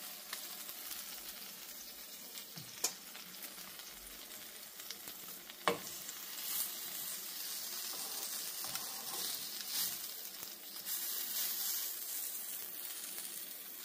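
Egg-soaked French toast slices and sausages frying in a nonstick pan: a steady sizzle that grows a little louder about halfway through, with two sharp clicks about three and six seconds in.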